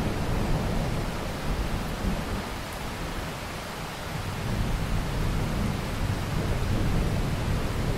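Steady rain, an even hiss, over a low rumble that eases about three seconds in and builds again in the second half.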